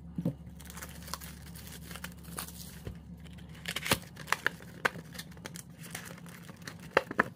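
Plastic shrink-wrap crinkling and cardboard box flaps being opened on a sealed trading-card hobby box, then foil packs rustling as they are handled: a run of scattered crackles and light taps, busiest about four seconds in and again near the end.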